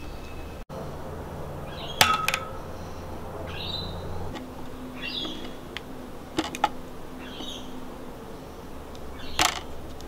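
Outdoor ambience: a bird chirping every second or two over a low steady hum, with a few sharp clicks.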